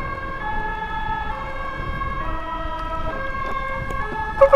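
Electronic siren sounding steady tones that jump between pitches every half second to a second, over a low rumble of engines and traffic.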